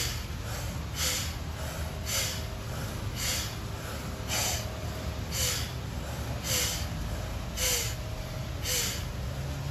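Sharp, forceful exhales through the nose, about one a second, fainter ones falling in between: rapid breathwork in which the gut is pulled in to drive each breath out.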